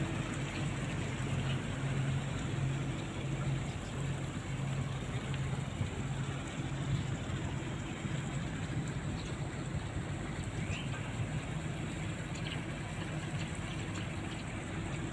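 Steady outdoor noise of splashing water with a low, pulsing engine hum underneath.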